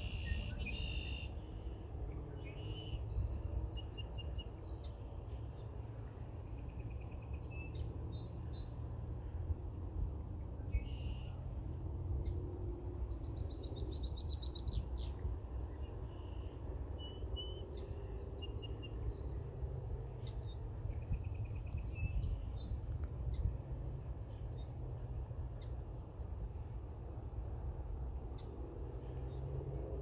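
Summer nature ambience: an insect chirping in a steady, even, high pulse, with birds singing short phrases every few seconds, over a low steady rumble.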